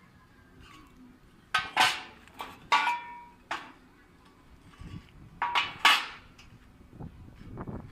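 Sharp metallic clanks of steel being struck, likely hammer blows on the iron door's hinges and frame: about five strikes in the first half and a quicker group of three a little later, each with a short ring.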